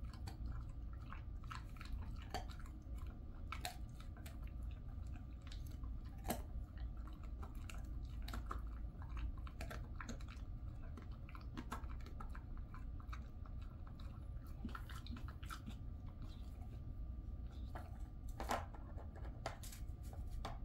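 A Jindo dog chewing a dried elephant-fish treat, with irregular crunches and clicks of its teeth over a low steady hum.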